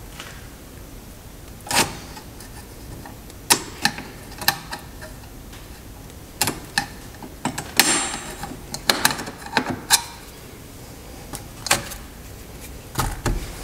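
Pliers and a steel spring clicking and scraping against the parking brake shoes and adjuster as the adjuster spring is hooked into place: a dozen or so irregular sharp metal clicks, one ringing briefly about halfway through.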